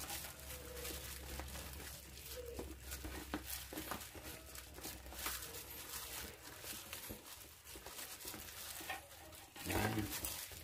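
Thick cake batter being stirred by hand in a large aluminium bowl: irregular wet squelching and scraping of the stirring utensil against the bowl as the lumps are worked out, with a louder burst near the end.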